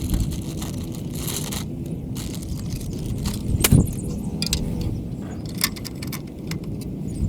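Hand work on electrical hardware: scattered clicks, taps and scrapes of tools and parts, with one louder knock about halfway through, over a steady low rumble.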